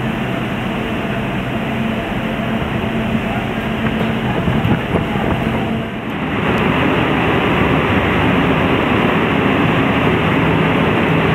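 A ferry's engines drone steadily under a dense rush of wind and churning water, heard from the open stern deck. About halfway through the sound breaks off briefly and comes back louder and rougher, with more rushing noise.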